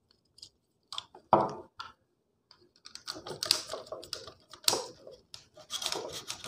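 Small clicks and rustling of copper wires being twisted and pushed into the terminals of a plastic switch board, with one louder thud about a second in. The clicking grows busier from about halfway, as a screwdriver works a terminal screw.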